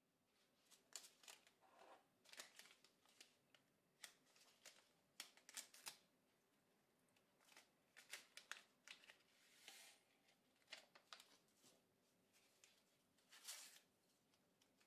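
Faint crinkling, rustling and clicking of paper-foil dry-yeast sachets being opened and emptied into a ceramic mug, in short irregular bursts with a louder rustle near the end.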